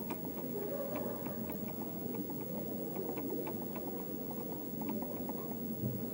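Quick, light clicking from a laptop keyboard being worked, irregular at about four or five clicks a second, over a faint steady hum of room noise.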